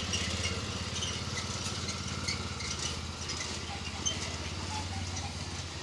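Small motorcycle engine running with a steady low hum.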